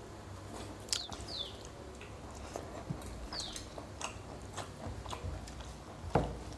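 Close-up mouth sounds of people eating rice and chicken by hand: wet chewing, lip smacks and small clicks. Two short high falling chirps sound a little after one second and after three seconds, and a louder knock comes about six seconds in.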